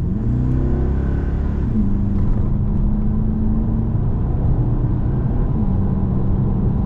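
Holden Caprice's 6-litre V8 fitted with J pipes accelerating hard under full throttle, heard from inside the cabin. The engine note climbs in pitch, then drops at an upshift about two seconds in and again near the end.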